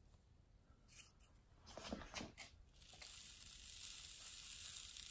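Faint scraping and rustling of a hand brushing through fine dust on a paper plate, a few short scrapes in the first half. A steady faint hiss sets in about three seconds in.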